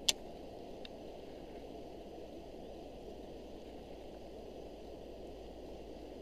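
Steady rush of a shallow stream's water flowing past, with one sharp click just after the start and a faint one about a second in.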